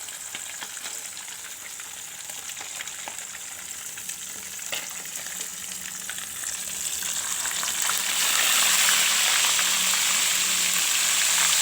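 Tilapia deep-frying in hot oil: a steady crackling sizzle with scattered pops, swelling much louder about two-thirds of the way through.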